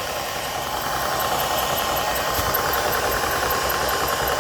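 Vevor 4500 psi PCP air compressor running steadily as it pumps up an air rifle's air reservoir, with a faint high tick repeating about three times a second.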